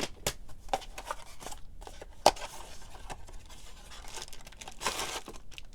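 Packaging being unwrapped and handled by hand: crinkling and rustling with scattered clicks and taps, one sharper click about two seconds in and a longer rustle near the end.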